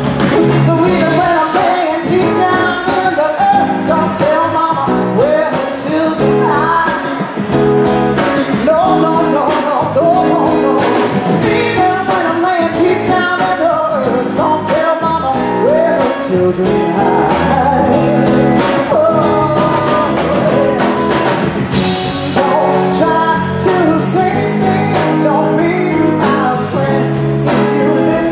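Live blues-rock band playing, with drums, electric bass and guitars, and a woman's voice singing over the band.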